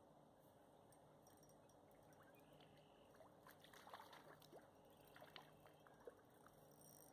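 Faint trickling creek water, with a few small splashes and sharp clicks in the middle.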